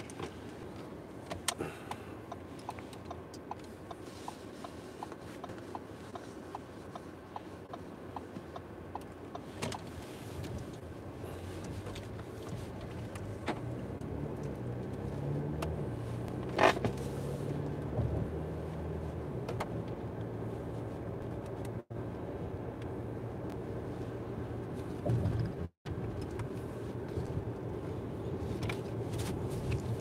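Steady car cabin noise while driving on a highway: engine and tyre hum that grows louder about midway, with a scattering of light ticks early on. One sharp click comes a little past the middle, and the sound cuts out briefly twice.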